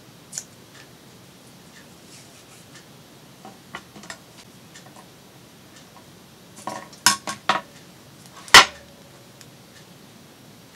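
Craft supplies handled and set down on a cutting mat: scattered light taps and clicks, a quick run of clacks about seven seconds in, and one sharp clink with a short ring about eight and a half seconds in.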